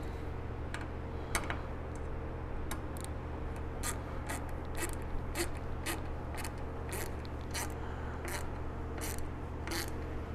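Hand screwdriver tightening stainless steel button-head screws into an aluminum plate: a regular series of sharp clicks, about two or three a second, over a steady low hum.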